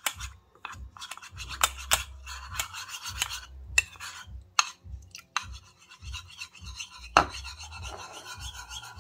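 Metal spoon stirring cornstarch and water in a ceramic bowl. It scrapes around the bottom and clinks against the side again and again, with one sharper clink about seven seconds in.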